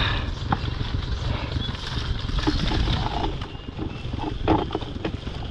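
Wind buffeting the microphone as a steady low rumble, with scattered knocks and slaps as freshly netted mullet and the cast net are handled in a small aluminium boat.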